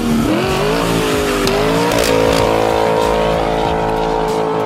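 A car engine revving: its pitch climbs over the first two seconds, then holds steady at high revs.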